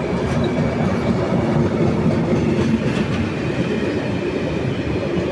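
Loaded ore freight train rolling past at low speed, a steady rumble from the wagons with wheels clicking over the rail joints.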